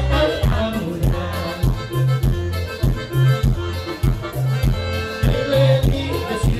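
Live Latin band music: an accordion-like melody over a steady, evenly repeating bass beat.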